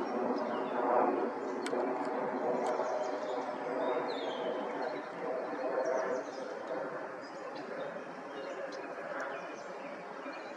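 Outdoor ambience: small birds give short scattered chirps and brief high whistles over a steady low murmur.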